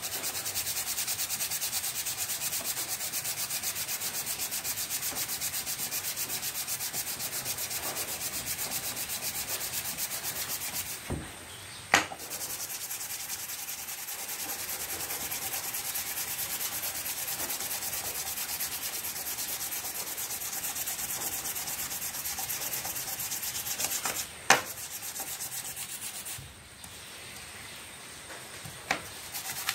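Sandpaper being rubbed by hand over a water-pump cover in quick, even back-and-forth strokes, cleaning the part. The sanding stops briefly a few times, and sharp knocks come about twelve seconds in, again after about twenty-four seconds, and once more near the end.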